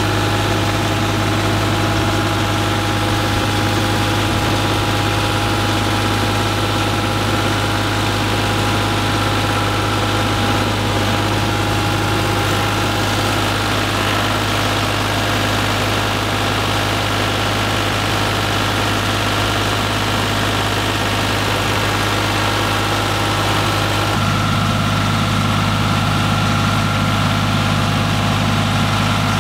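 Engine of a Vermeer LM42 trencher running steadily while its backhoe attachment is operated, with a low, even hum. The note changes about 24 seconds in.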